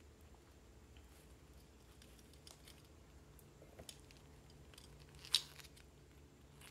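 A sheer organza drawstring pouch being pulled open and handled, with faint rustling and small clicks from the metal pin-back buttons inside; one sharper click about five seconds in.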